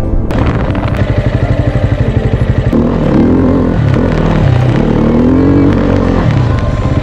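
Dirt bike engine running at low revs with a fast, even pulse, then revving up and down from about three seconds in.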